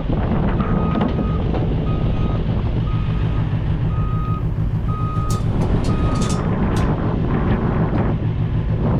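Reversing alarm of a construction vehicle beeping six times, about once a second, then stopping, over heavy wind rumble on the microphone. A few sharp clicks come near the last beeps.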